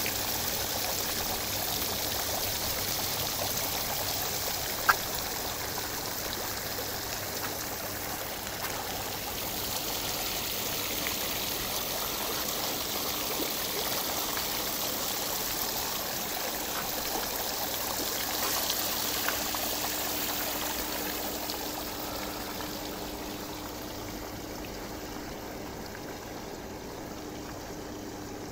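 Rain falling with rainwater running, a steady rushing hiss, with one sharp tap about five seconds in; the rush eases over the last few seconds.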